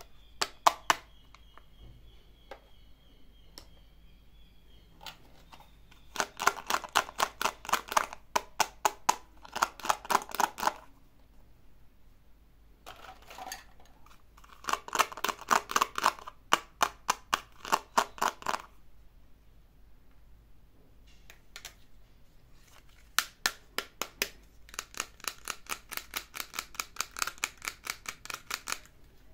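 Fingers tapping quickly on hard plastic toys, in three long runs of sharp, evenly repeated taps, several a second, with a few single clicks between.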